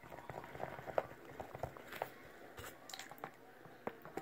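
Glue-based slime mixture being stirred in a bowl just after contact solution goes in, giving irregular sticky clicks and squelches.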